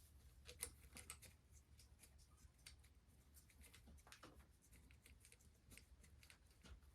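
Near silence: a few faint, scattered clicks and light taps over a low steady hum.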